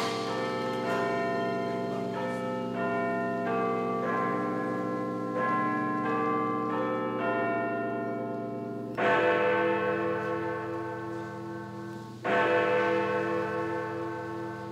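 Recorded program music: a slow melody of held, ringing notes, then two loud struck chords about three seconds apart, each ringing and slowly fading.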